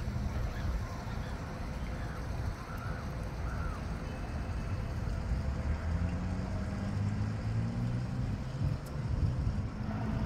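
Steady low engine rumble, its pitch lines growing stronger in the second half, with a few short high chirps in the first few seconds.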